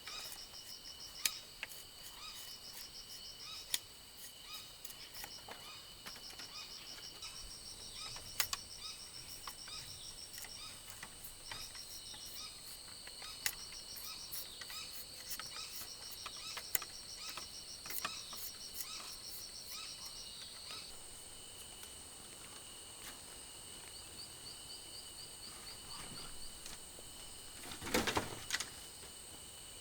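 Rainforest insects chirring in steady, high-pitched pulsed trains that overlap and shift, with scattered sharp clicks and a louder crackle near the end.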